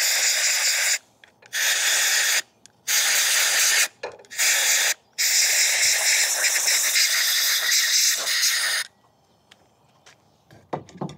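Compressed-air blow gun hissing in five bursts, the last one the longest, as it blows sitting water and debris out of a brass pressure washer pump manifold's seal bores into a shop towel. The blasts stop about nine seconds in.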